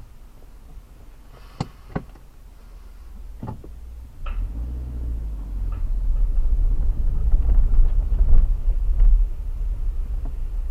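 Car door handling, a few clicks and knocks ending in a door shutting with a thunk about four seconds in. Then the vehicle moves off, heard from inside the cabin: a low rumble of engine and tyres that grows louder as it rolls onto a wooden-plank bridge.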